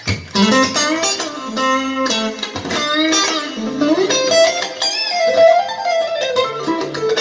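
Guitar played through a compressed acoustic-guitar sound: a calm, melodic line of plucked and tapped notes that ring on, with some notes sliding or bending in pitch midway through.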